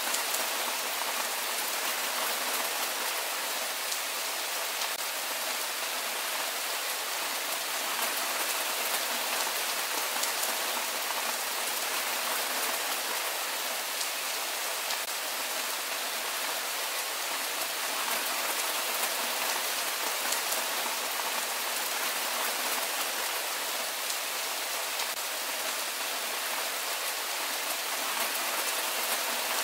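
Steady rain falling: an even hiss of many drops that holds level throughout.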